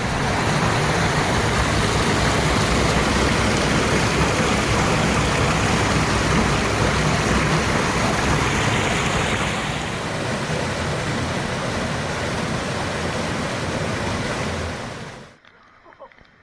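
High, fast stream water rushing over rocks, a loud, steady rush that eases slightly about two-thirds of the way through and then stops abruptly near the end.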